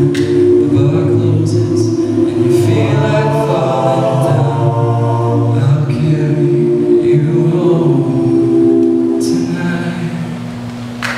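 Men's a cappella group singing the closing bars of a song: held chords in close harmony, growing a little softer near the end.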